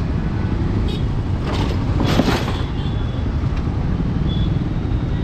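Hero Xpulse 200 4V single-cylinder motorcycle engine running at low speed, with a steady rumble of city road traffic around it. A brief rushing hiss comes about two seconds in.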